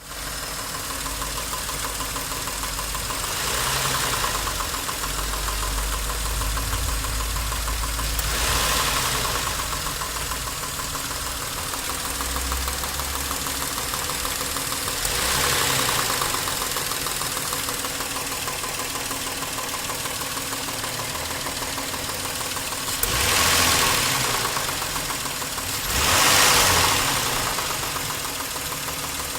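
Nissan Maxima A32's 3.0 V6 engine idling with a knock, a fast even ticking under the running, and revved up briefly five times.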